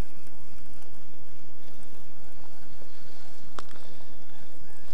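Wind buffeting the camera microphone: a steady low rumble and hiss, with one sharp click about three and a half seconds in.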